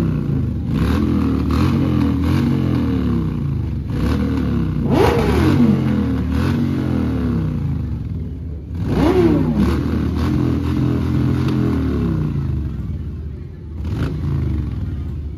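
Several motorcycle engines running together, with two quick throttle blips about five and nine seconds in, each a sharp rise and fall in pitch.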